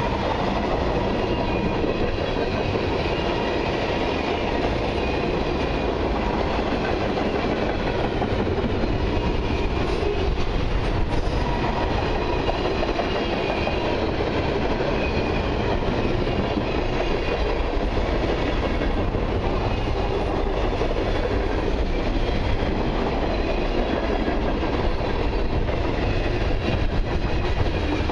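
Freight cars of a long mixed freight train rolling past at close range: a steady rumble and rattle of steel wheels on the rails.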